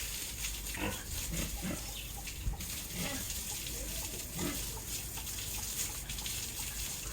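Pig grunting, a series of short low grunts scattered every second or so, over a steady hiss.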